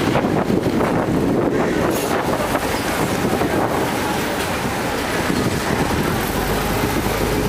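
A Chao Phraya river ferry under way: its engine runs with a steady rumble and water rushes past the hull, and wind buffets the microphone.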